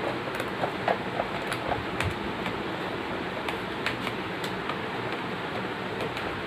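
Scattered light clicks and taps from a cardboard box being handled and opened, over a steady background hiss.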